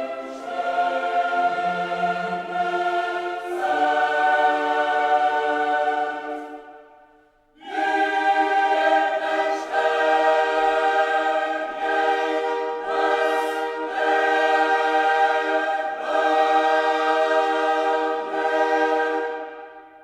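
A choir singing long held chords with no words made out, breaking off briefly about seven seconds in, then fading out at the end.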